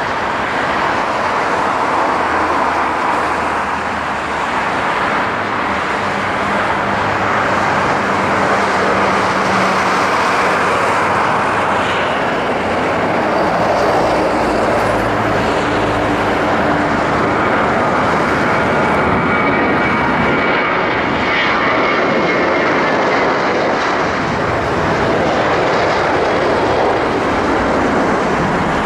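Twin turbofan engines of a Boeing 737 airliner at takeoff thrust: a loud, steady jet roar through the takeoff roll, lift-off and climb-out.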